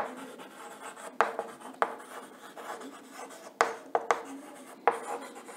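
Chalk writing on a chalkboard: light scratching strokes with several sharp taps where the chalk strikes the board.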